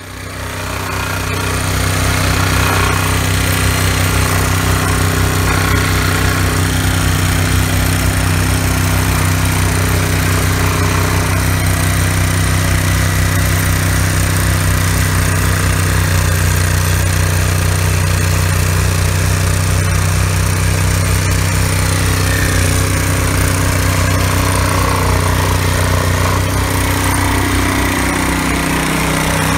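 Ditch Witch R300 mini skid steer running with its vibratory plow attachment working: a steady engine drone under a fast, even hammering vibration as the plow blade pulls fiber cable through the lawn. It fades in at the start, and near the end one tone in the engine note dips lower.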